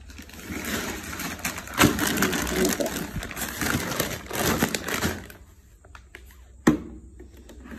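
A crackling, crinkling rustle dense with small clicks for about five seconds, then a single sharp knock near the end.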